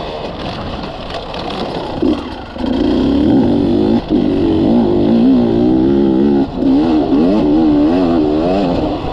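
Beta Xtrainer two-stroke dirt bike engine under way, revving up and down with the pitch rising and falling. It is lighter for the first couple of seconds and then pulls harder, and the throttle shuts briefly about 2, 4 and 6.5 seconds in.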